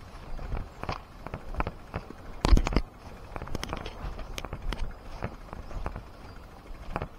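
Footsteps and the irregular clicks and knocks of a bicycle being pushed up a mountain road, with one louder knock about two and a half seconds in.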